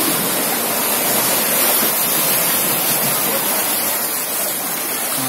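Seawater from a wave surging in and rushing across a flooded stone floor, a steady loud wash of water.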